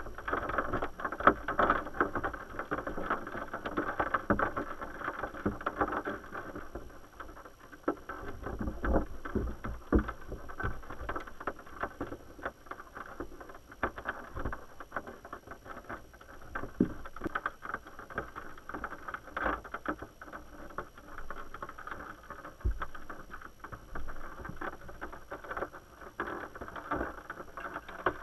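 Muffled rushing of river water heard underwater, uneven in level, with many small clicks and knocks scattered through it.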